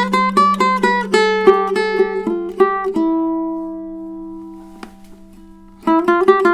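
Koa-bodied, redwood-topped tenor ukulele played with a pick: a quick run of single notes over a steady ringing low note. About three seconds in, a chord is held and left to fade, and fast picking starts again near the end.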